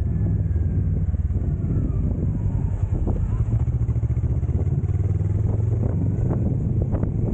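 Motorcycle engine running steadily under way, a low pulsing drone, with a few faint knocks.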